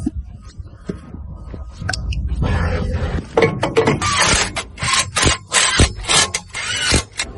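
Rough scraping or rasping strokes, a handful in quick succession in the second half, as of hand work on hard parts.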